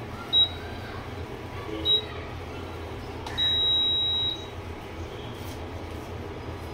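Electric glass-top cooktop beeping as its controls are pressed: two short high beeps, then one longer beep of about a second, over a low steady hum.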